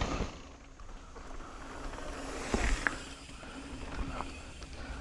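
Mountain bike riding down a dirt trail: rushing wind noise on the microphone with tyre roll and a few short knocks and rattles from the bike.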